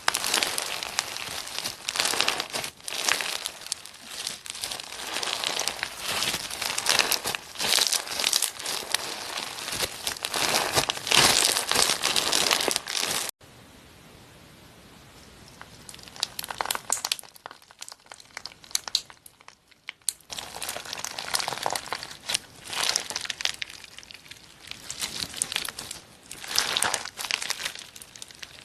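Hands squeezing and pressing slime, with dense crackling and crinkling sounds. It cuts off abruptly about halfway through and stays quieter for several seconds before the crackling builds back.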